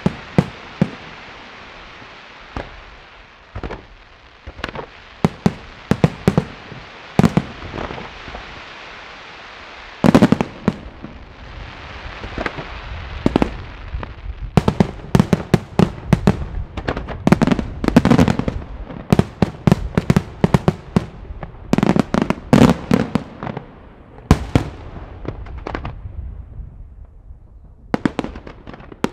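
Aerial firework shells bursting one after another, with sharp bangs at irregular intervals over a steady crackling hiss. The bursts come thickest in the middle stretch and thin out near the end.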